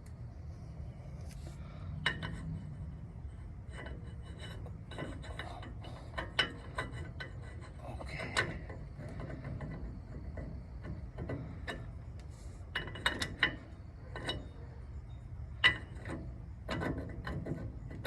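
Irregular metal clicks, clinks and light knocks of a manual locking hub being worked onto the front axle's splines and studs, with a few louder knocks in the second half.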